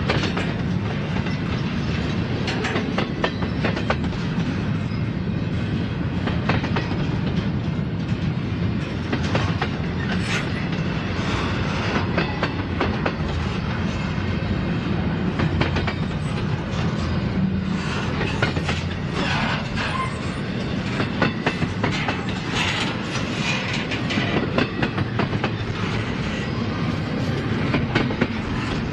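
Freight train cars rolling steadily past, their wheels clicking over the rail joints above a continuous rumble.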